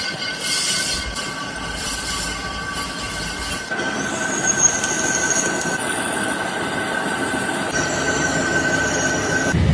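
Metal scraping and squealing, with a steady high tone throughout; about four seconds in it turns louder and noisier, with extra shrill tones on top.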